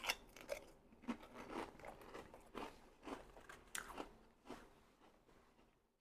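Close-miked eating: a loud crunchy bite right at the start, then irregular crunching and chewing, a stroke about every half second, that fades toward the end.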